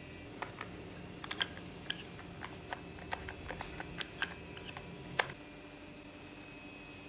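Irregular light clicks and taps of hands handling the clear plastic syringe parts and tubing of a homemade air pump, ending with one sharper click about five seconds in.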